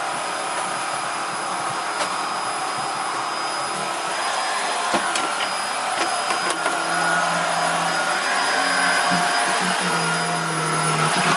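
Vacuum cleaner running steadily with its Filter Queen Majestic 360 power nozzle, a high whine over a steady rush of air, with a few light knocks. About seven seconds in a low hum joins, breaking off briefly a few times.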